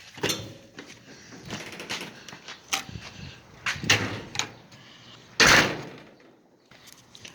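A door opening and closing, with scattered knocks and clatter and one loud bang about five and a half seconds in.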